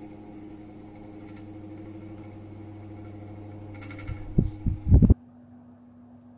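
1987 Matsushita thick-shaft table fan motor running with a steady hum. It is broken by a few loud low thumps about four to five seconds in, then cuts abruptly to a quieter, lower hum.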